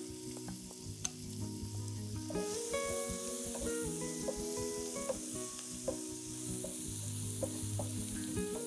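Chopped garlic sizzling in melted butter in a frying pan, stirred with a wooden spatula that gives a few light scrapes. The sizzle grows louder about two seconds in.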